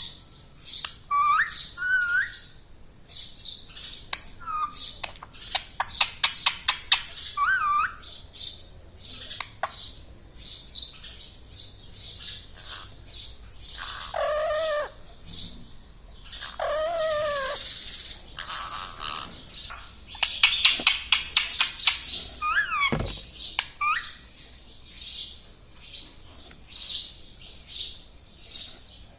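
Pet parrot chirping and chattering: a steady stream of rapid, short, high chirps, with a few whistled glides and two longer drawn-out calls about halfway through.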